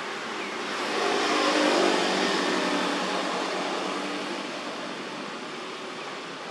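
A motor vehicle passing: engine and tyre noise swell to their loudest about two seconds in, then slowly fade.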